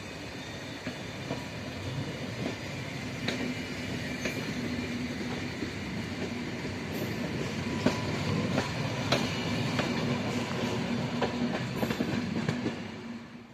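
SNCF TER passenger train rolling past, its wheels clacking over the rail joints over a steady rumble and a low hum. The sound grows louder, then cuts off suddenly at the end.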